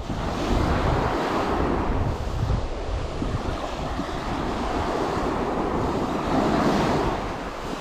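Wind buffeting the microphone over small sea waves lapping: a steady rush with low rumbles.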